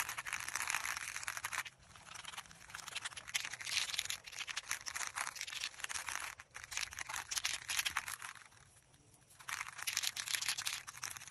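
Clear plastic masking sheet crinkling and rustling as it is handled, in bursts of one to two seconds with short pauses between.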